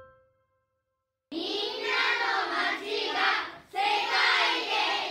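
A last piano note fades out, then after about a second of silence a choir of children starts singing together. There is a short break between phrases midway.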